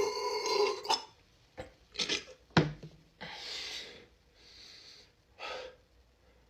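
The tail of a man's long, deep soda burp dies away in the first second. It is followed by several heavy breaths, with a sharp click about two and a half seconds in.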